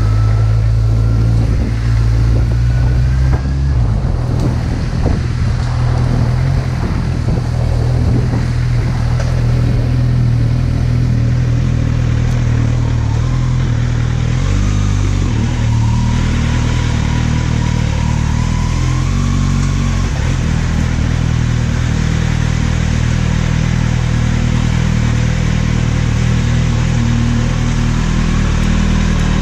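Kawasaki Z800 inline-four motorcycle engine running, heard from a helmet- or bike-mounted action camera with wind rushing over the microphone. The engine note drops about four seconds in, then holds steady through the second half.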